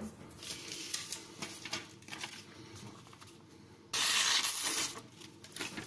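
Carbon-steel knife edge being drawn across an oiled Norton India Fine oilstone: light scraping strokes, then one louder, longer stroke of about a second around four seconds in.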